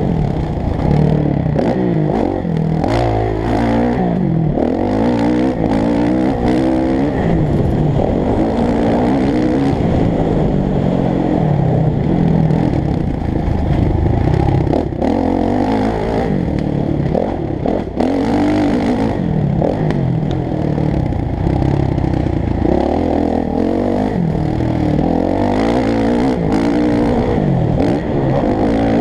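Motocross bike engine heard from on board while riding a dirt track, loud throughout, the revs rising and falling over and over as the throttle is opened and shut.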